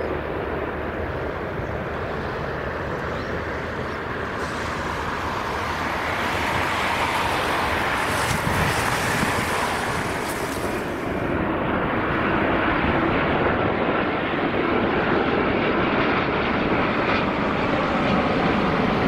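Jet airliner engines heard from the ground as the aircraft passes: a steady, dense rush that grows somewhat louder about halfway through.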